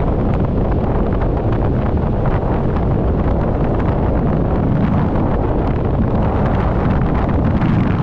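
Strong wind buffeting the microphone in a loud, steady rumble, with Lake Michigan waves breaking and washing up the beach underneath.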